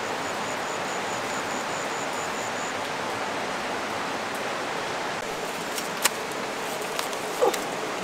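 Steady rush of running water, like a forest stream, throughout. A high, rapid pulsing call, about five pulses a second, runs through the first few seconds, and a couple of sharp snaps come near the end.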